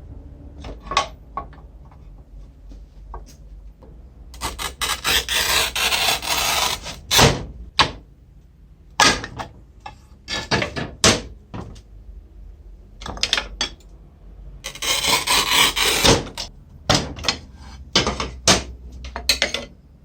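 Manual tile cutter in use: the scoring wheel scrapes along a tile in two long gritty strokes, amid sharp clicks and knocks of the handle and tile on the cutter.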